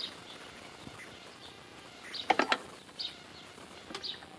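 A quick cluster of light metallic clinks about two seconds in, like metal hardware being handled, over faint bird chirps.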